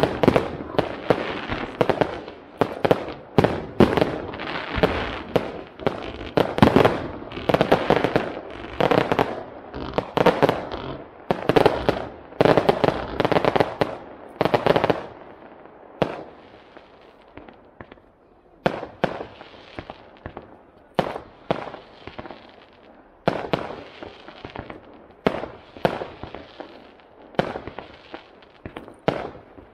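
Aerial fireworks display: a dense barrage of shell bursts and crackling for about the first fifteen seconds, then thinner, separate bangs with short gaps between them.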